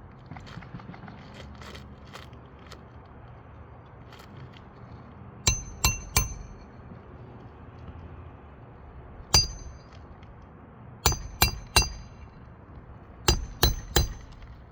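Hammer blows driving a roofing nail into an asphalt shingle, each strike a sharp metallic clink with a brief ring. They come in groups: three quick blows, a single one, then two more sets of three.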